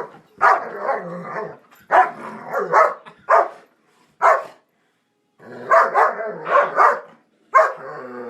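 A dog vocalizing during play: a run of drawn-out barks and yowls, some short and some over a second long, with a pause a little past halfway.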